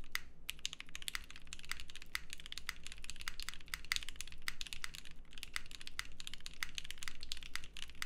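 Fast, steady typing on a custom gasket-mounted mechanical keyboard with lubed and filmed Gateron CJ linear switches, GMK keycaps and an aluminum plate, a dense patter of keystrokes with one short pause just after the start.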